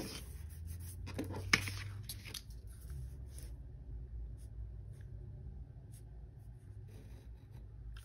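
Pen writing on paper: faint short scratches, with one sharper click about a second and a half in.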